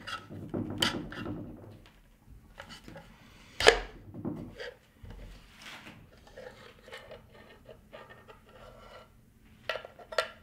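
Handling of a LaCie d2 aluminium hard-drive enclosure during reassembly: rubbing and scraping with scattered metal clicks, one sharp knock about four seconds in, and two quick clicks near the end.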